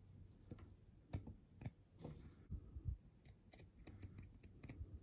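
Small scissors snipping through thin fabric: a run of faint, irregular snips as the blades close.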